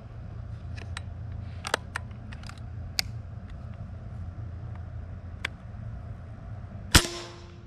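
Benjamin Bulldog .357 pre-charged air rifle firing a single shot about seven seconds in: one sharp crack with a short ringing decay. Before it there are a few faint clicks, over a steady low hum.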